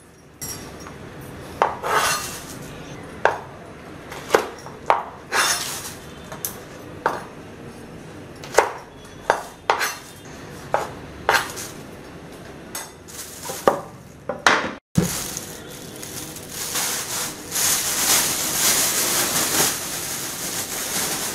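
Kitchen knife chopping onion and okra on a wooden cutting board, sharp knocks every second or so. About 15 seconds in, the knocks give way to a thin plastic carry bag crinkling steadily as it is gathered and twisted closed.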